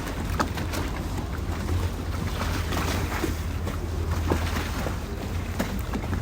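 Canal water lapping and sloshing against moored gondolas, with frequent small irregular splashes and knocks over a steady low rumble.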